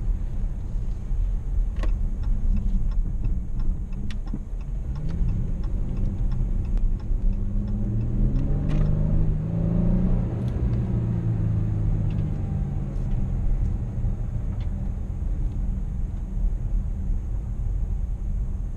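Dodge Charger AWD engine heard from inside the cabin, accelerating as the car pulls out onto the road. Its pitch climbs about six to ten seconds in, then settles to a steady cruise over a low road and tyre rumble. Light clicks come and go during the first half.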